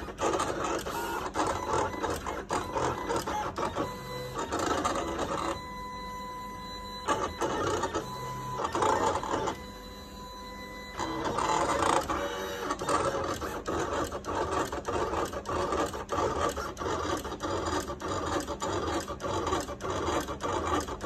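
Dragon Gaurd Cameo 4 cutting plotter cutting a printed photo skin: its motors whir and buzz with rapid clicking as the blade carriage and the cutting mat shuttle back and forth. Twice, a few seconds in and again about ten seconds in, it settles into a quieter steady whine for a second or so.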